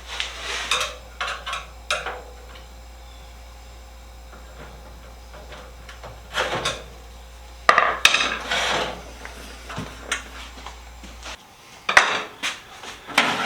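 Steel drawers of a rolling tool chest clanking and scraping as they are worked loose and pulled out, in several separate bursts of metal-on-metal rattling.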